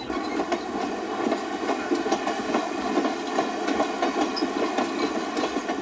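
Passenger train rolling along the track: a steady rush of steel wheels on rail, with a constant run of irregular clicks and rattles from the cars.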